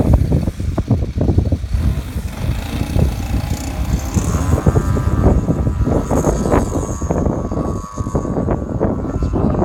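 DA-70 twin-cylinder two-stroke gas engine of a large RC aerobatic plane, fitted with a 2-in-1 header and a large hype can muffler, running; its steady note is clearest from about four seconds in, under heavy wind buffeting on the microphone.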